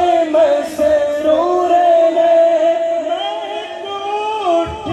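A naat, an Urdu devotional song in praise of the Prophet, sung by a male voice without instruments, drawing out long held notes that bend and waver in pitch.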